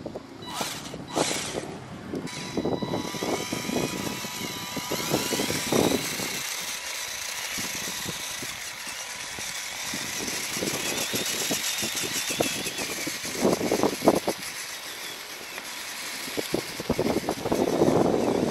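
Electric motor and gear drive of a wooden-chassis RC truck whining as it drives across loose sand. The pitch rises and falls with the throttle, and there are bursts of gritty noise from the knobby tyres churning sand.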